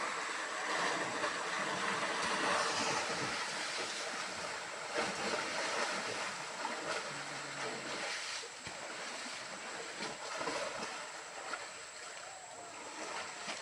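Rushing muddy stream water with occasional splashes as two Asian elephants shove each other in it, loudest in the first few seconds.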